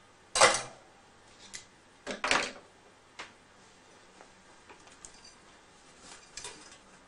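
Metal tools being handled and set down on a workbench: a sharp clack about half a second in, a double knock around two seconds in, then a few light ticks.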